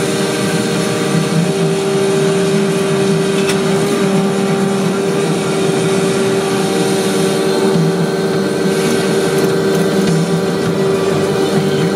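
Vacuum brick-laying paving machine running steadily: a constant engine drone with a steady tone held above it.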